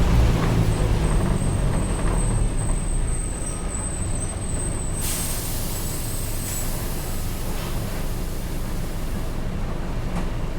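Mercedes-Benz OF-1722M bus's diesel engine running and easing off. A hiss of air from the air brakes starts about five seconds in and lasts about four seconds.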